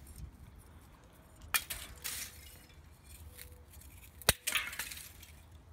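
Pieces of freshly made wood charcoal (biochar) being broken by hand: two sharp, glassy clinks with a brief crackle after each, nearly three seconds apart. The glass-like sound on breaking is the sign of thoroughly carbonised charcoal.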